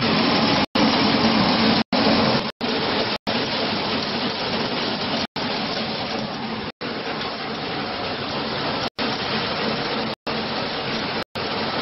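Maize peeling and milling machine running, a steady dense rushing noise of its motor and grain passing through it, with a low hum that fades after about two seconds. The sound cuts out for an instant several times.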